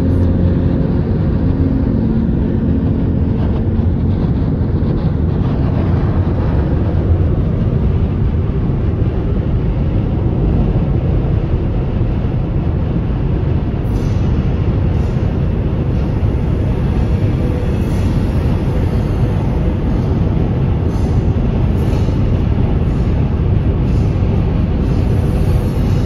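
High wind and road noise heard from inside a car moving at highway speed: a steady low rumble with no breaks.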